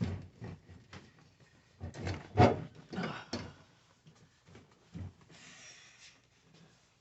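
Knocks, clunks and rattles of a vehicle seat being worked loose and lifted out. The loudest knock comes about two and a half seconds in, and there is a short scraping rustle near six seconds.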